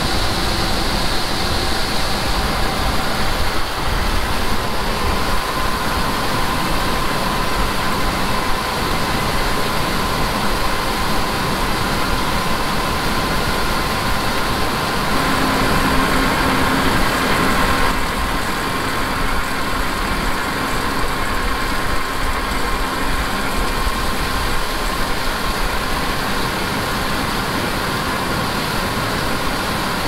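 Heavy farm machinery running steadily, a combine harvesting corn with a tractor working alongside: a constant engine hum with a faint steady whine over it, easing a little about two-thirds of the way through.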